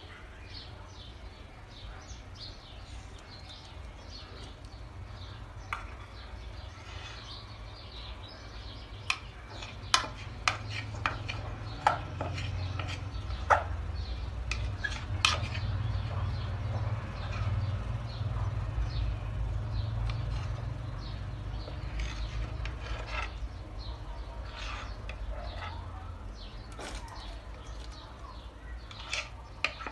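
Light clicks and taps of kitchen handling as thick cake batter is poured slowly from a plastic container into a round cake tin, with a spatula scraping the container near the end. Under it there are faint high chirps and a low rumble that swells in the middle.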